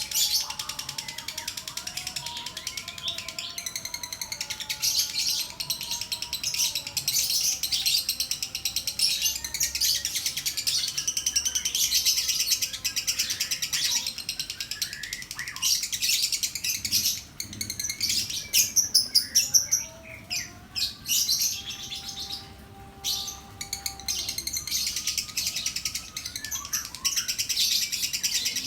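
Blue sapphire lovebird singing a long, very fast high-pitched chattering trill, broken by a few short pauses past the middle. Lower drawn-out whistling notes run underneath.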